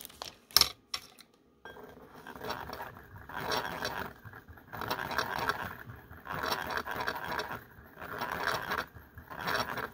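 A small wire whisk stirring acrylic nail powder in a glass bowl, scraping against the glass in swells about every second and a half. A few sharp clicks come first, in the opening second.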